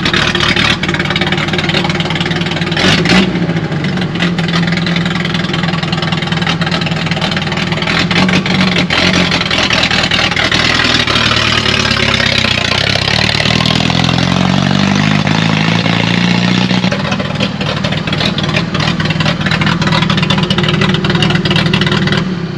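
Nissan 720 pickup's carbureted Z24 four-cylinder engine running loud while the truck is driven slowly, its pitch rising and stepping up and down with throttle between about 12 and 17 seconds in. A short sharp knock about 3 seconds in. The owner calls the carburetor pitiful with the wide-open manifold.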